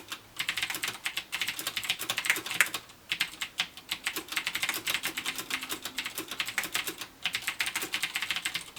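Typing on a CM Storm Quickfire TK mechanical keyboard with clicky Cherry MX Blue switches: rapid runs of sharp key clicks, with brief pauses about three and seven seconds in.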